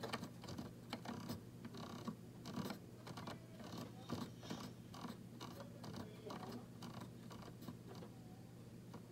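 An electric oven's control dial being turned to add baking time, giving a run of faint clicks, a few a second, that thin out near the end. A steady low hum runs under them.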